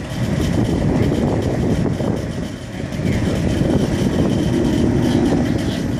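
Gusty wind buffeting the camera's microphone: a loud, uneven low rumble that dips briefly about two and a half seconds in, with a faint steady high tone underneath.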